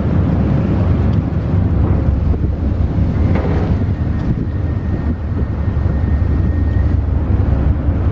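Steady low rumble of wind buffeting the microphone over engine noise at the ferry's berth. A faint, thin high tone holds for a few seconds in the middle.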